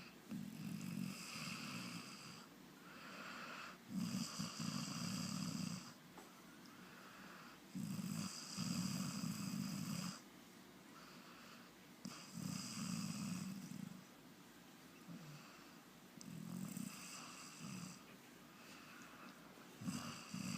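A sleeping pet snoring in slow, regular breaths, about one snore every four seconds, each lasting around two seconds.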